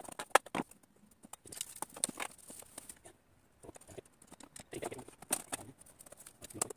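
Irregular light clicks and knocks of a fishing rod and a sheet-metal rod holder being handled as the rod is fitted into the holder's holes, with a sharper knock about half a second in.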